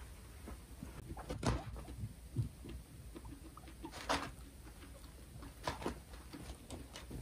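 A few short, sudden noises from two guinea pigs squaring off for dominance, the loudest about four seconds in, over a low steady room hum.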